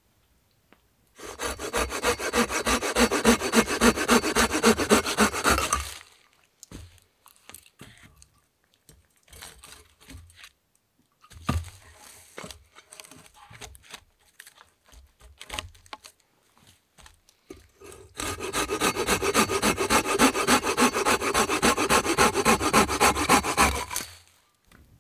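Folding hand saw cutting through a dry log in quick, even strokes, about four a second, in two runs of roughly five and six seconds. Between the runs come scattered knocks and rustles of wood being handled in dry leaves.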